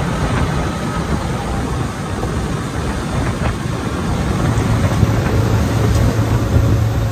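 Suzuki outboard motor running at cruising speed, a steady low hum under the rush of wind and water as the boat moves; the hum grows stronger about four and a half seconds in.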